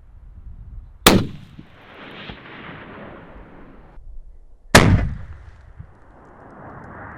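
Two rifle shots about three and a half seconds apart, each followed by a long rolling echo that fades over about three seconds.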